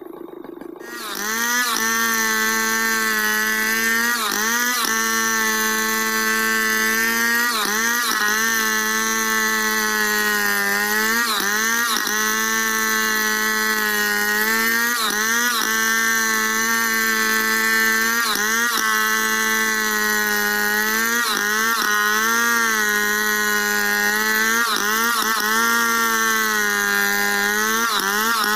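Stihl 070 two-stroke chainsaw ripping lengthwise through a squared log in a freehand milling cut. It comes up to full speed about a second in and then runs steadily at high revs, the pitch dipping briefly and recovering every few seconds as the cut loads the engine.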